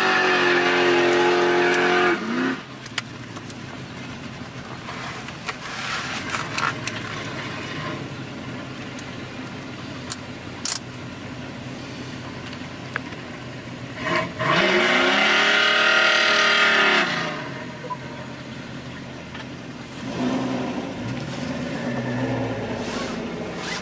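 Muscle car engine idling and being revved, heard from inside the cabin: a loud high rev cuts off about two seconds in, the engine settles to a low idle, then a strong rev rises, holds and falls away in the middle. Lighter blips of the engine follow near the end.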